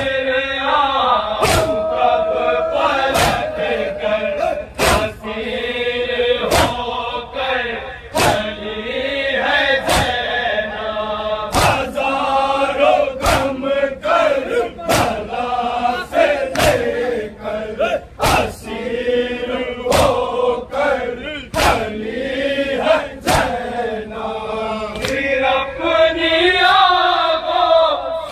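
Male voices chanting a nauha-style lament together. A sharp beat falls in time with the chant about every one and a half seconds.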